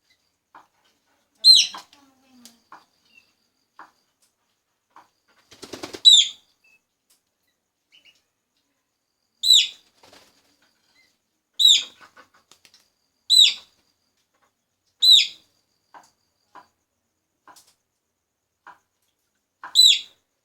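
Black-winged stilt giving short, sharp, high calls that each drop in pitch, about seven of them at irregular gaps of two to four seconds, with faint ticks in between.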